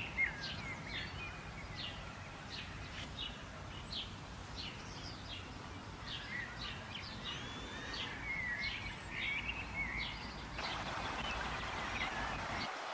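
Wild birds chirping and calling, a rapid string of short, high chirps and brief warbled phrases over a steady background hiss. Near the end the chirps thin out and a broader hiss takes over.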